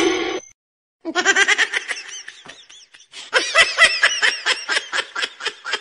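Human laughter: a run of quick, rhythmic ha-ha bursts starting about a second in and growing louder from about halfway.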